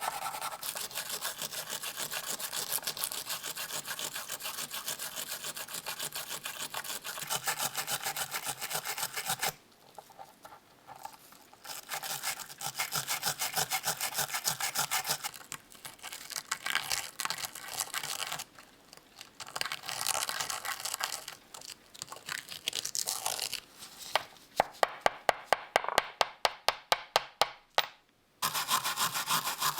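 A hand saw cutting into a metal part in quick, even back-and-forth strokes, stopping a couple of times. Near the end the strokes come sharper and louder, about four a second.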